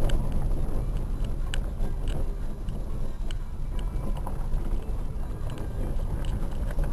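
Dacia Logan driving down a rough dirt mountain track: a steady low rumble of tyres and running gear, with scattered short clicks and knocks.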